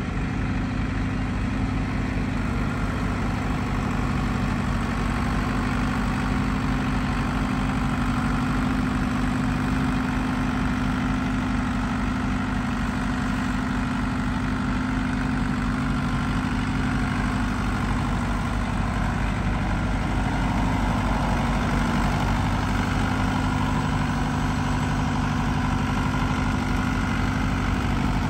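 1974 Deutz D7206 tractor's air-cooled diesel engine running steadily at low revs while the tractor is driven slowly, a little louder in the last several seconds.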